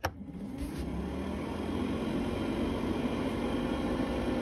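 A switch clicks and a small electric motor in a 1963 Triumph TR4 starts up, running with a steady hum that builds slightly. A second sharp click comes right at the end.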